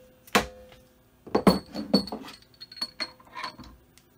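A mallet tapping a 6061-T6511 aluminium bar down into aluminium soft jaws in a machine vise to seat it: a string of sharp taps with a light metallic ring, bunched between about one and two and a half seconds in, with a few more before four seconds.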